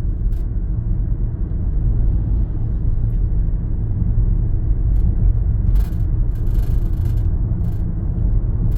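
Steady low rumble of a car driving on the highway, heard from inside the cabin.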